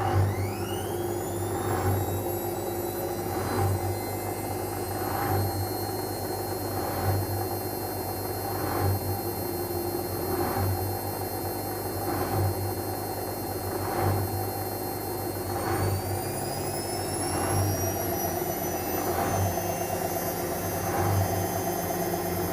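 Whirlpool FL 5065 front-loading washing machine speeding its drum up for a 600 rpm spin: the motor's high whine rises in pitch at the start, holds steady, then climbs again about fifteen seconds in. Under it runs a low hum, with a short swish or thump repeating about every second and a half to two seconds.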